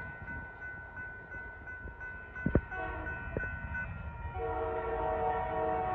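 Grade-crossing bell ringing in quick even strokes over the low rumble of a departing freight train, falling silent about four seconds in. Then the train's multi-chime air horn sounds a long steady chord in the distance.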